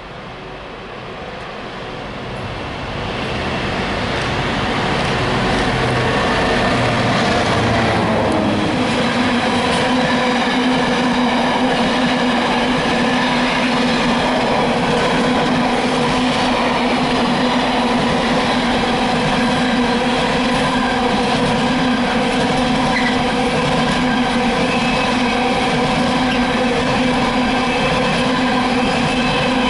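A GBRf Class 66 diesel freight locomotive, with its two-stroke V12 engine, runs through the station. It grows louder as it approaches, and its engine note drops in pitch as it passes about eight seconds in. After that comes a long steady run of freight wagons rolling by on the rails, with a constant ringing tone from the wheels.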